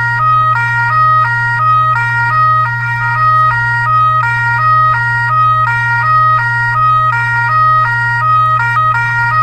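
Electronic siren sound: pitched tones stepping back and forth between a few fixed notes about three times a second in a repeating pattern, over a steady low hum.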